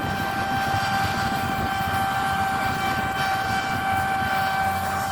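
Claas Lexion 8900 combine harvester running steadily while harvesting wheat: a steady high whine over a low engine rumble.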